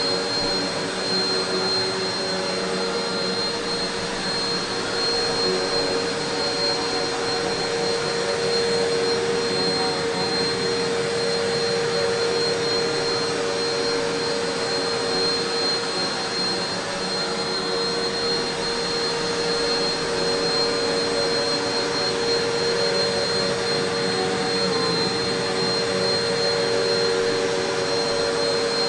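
Eureka PowerSpeed Pro Swivel Plus (NEU192A) bagless upright vacuum cleaner running steadily: an even rushing hum with a thin high whine on top.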